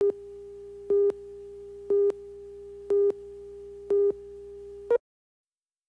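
Countdown beeps on a commercial slate: a steady tone with a louder beep of the same pitch once a second, then dead silence from about five seconds in.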